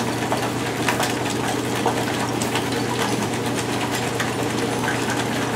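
Metal wire whisk beating oil and egg into aioli in a glass bowl: a fast, even clatter of whisk strokes against the bowl, over a steady low hum.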